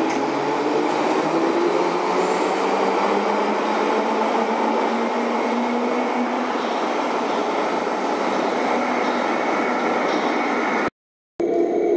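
London Underground 1972 Stock tube train pulling out and running away into the tunnel, a steady rumble with faint motor tones echoing along the tiled platform tunnel. The sound cuts out abruptly about eleven seconds in.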